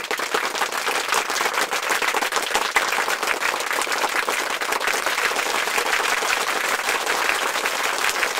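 Steady applause: many hands clapping together in a dense, even patter.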